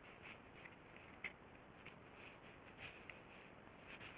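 Near silence: faint room tone with a few soft, light clicks, one a little sharper about a second in.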